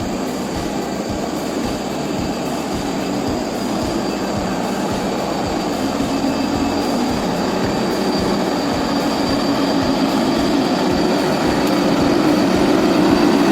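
Steady rumbling noise of a heavy vehicle on the move, slowly growing louder, with a faint steady high whine over it.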